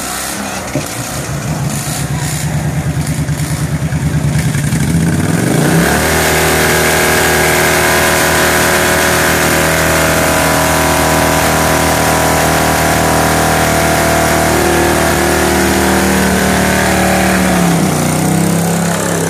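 Modified lawn tractor engine in a tug-of-war pull: its note climbs over the first few seconds, then holds at full throttle under load for about twelve seconds, and drops back near the end.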